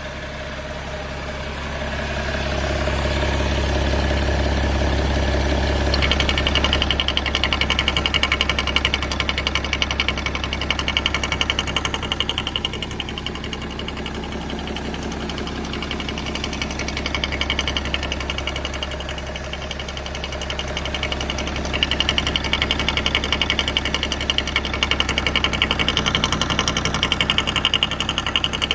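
BMW M57 straight-six diesel engine idling with a rapid knocking and ticking. The noise gets louder and sharper about six seconds in and again about two-thirds of the way through. The owner traces the knock to the vacuum pump and says it is harmless.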